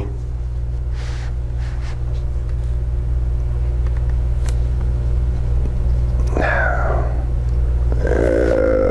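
A steady low rumbling hum under everything, with a few faint small clicks of hands working a laptop fan's tiny wire plug into its socket, and brief wordless voice sounds twice near the end.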